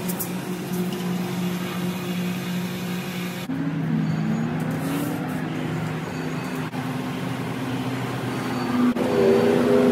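A motor vehicle's engine running steadily. Its pitch shifts and glides upward about three and a half seconds in, and it grows louder near the end. Over it, a pressure-washer spray hisses, fading out partway through.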